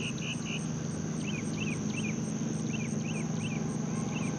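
Outdoor pondside ambience: insects trilling, with a high pulse repeating about four times a second, and a bird giving short sharp chirps in quick groups of three, over a steady low hum.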